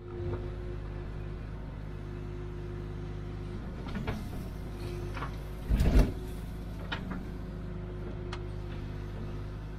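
Hitachi UH043 excavator's diesel engine running steadily as it digs into a rocky bank, with several knocks and clunks from the bucket and hydraulics working; the loudest clunk comes about six seconds in.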